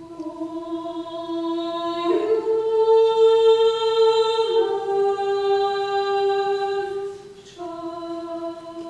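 Small vocal ensemble singing slow, sustained notes in unison. The line steps up to a higher note about two seconds in and slips down a little past four seconds. It fades briefly, then comes back in on the opening pitch near the end.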